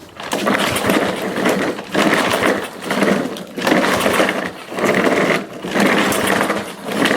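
Mountfield SV150 petrol mower engine firing on easy-start and running rough, surging up and down about once a second. It is hunting on the starting spray alone, the sign of fuel starvation from a carburettor that needs cleaning.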